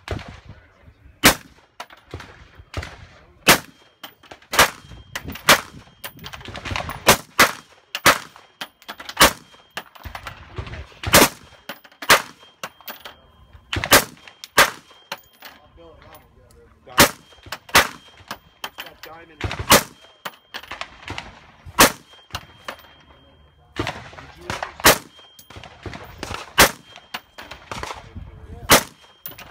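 Suppressed rifles firing on a range: a steady, uneven string of sharp shots about one a second, louder and fainter shots interleaved.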